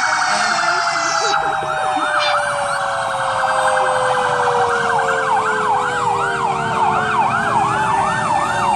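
Several emergency-vehicle sirens sounding at once from an arriving convoy of fire engines and a police car: a fast yelp that rises and falls about twice a second, over a long wail that slowly falls in pitch.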